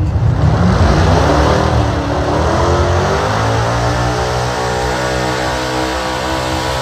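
Pickup truck engine at full throttle, dragging a weight sled down a dirt pulling track. It starts as a broad rush of exhaust and spinning tyres, and about three seconds in it settles into an even, high-revving engine note.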